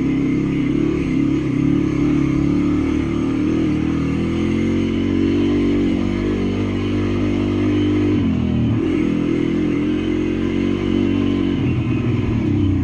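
Welsh Pit Bike's small single-cylinder engine running under load on a dirt trail, its note rising and falling with the throttle and dipping briefly about eight seconds in.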